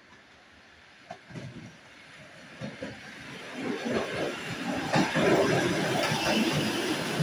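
ED4M electric multiple unit approaching and running past, growing steadily louder as it nears. Its wheels knock irregularly over the track, with a sharp knock about five seconds in.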